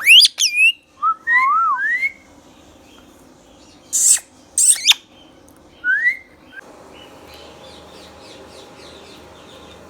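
Indian ringneck parakeet whistling and screeching: several rising and falling whistles in the first two seconds, two short harsh screeches about four and four and a half seconds in, and one short rising whistle near six seconds. Faint chirping follows.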